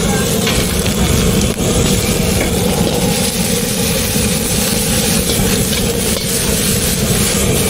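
Gas wok burner running with a steady roar and hiss under a constant low hum.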